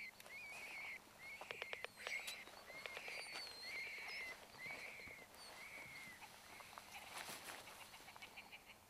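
A dog whining at a rabbit burrow, a series of short high whines that each rise and fall, typical of a dog keen on a rabbit it knows is in there. There are a few sharp clicks about a second and a half in, and faint bird chirps.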